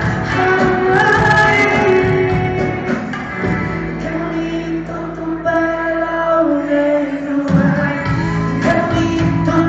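Live band music with singing, a pop or Latin concert played loud on stage. Through the middle, long held notes ring over a lighter accompaniment, and the full band with drums comes back in about three-quarters of the way through.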